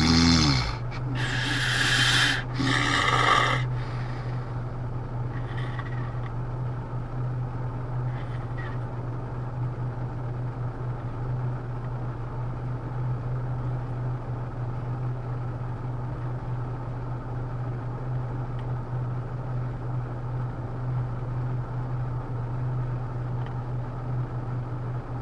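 A man snoring: two loud snores in the first three or four seconds, then the snoring stops and only a steady low hum remains.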